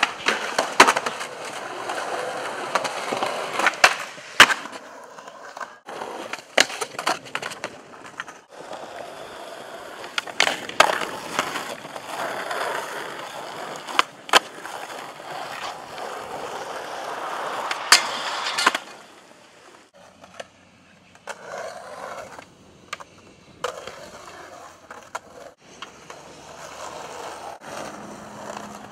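Skateboard wheels rolling over concrete and asphalt, broken by sharp cracks of the tail popping and the board landing from tricks. The rolling is louder through the first two-thirds and quieter after that, with only scattered clicks.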